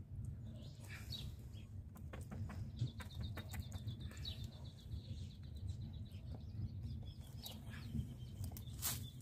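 Steady low wind rumble on the microphone, with scattered small clicks and knocks as fishing tackle is handled. A bird trills rapidly in the background through the middle of the stretch.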